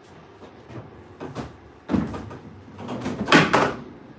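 A few knocks and clatters as objects are handled, the loudest cluster a little over three seconds in.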